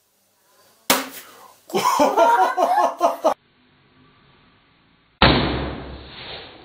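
A silver latex balloon packed with shaving foam bursting as a wooden skewer pierces it, about five seconds in: a sudden pop, then a rush as the foam sprays out, dying away over a second or so.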